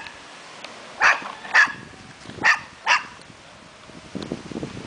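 An animal barking: four short, sharp barks in two pairs, each pair about half a second apart.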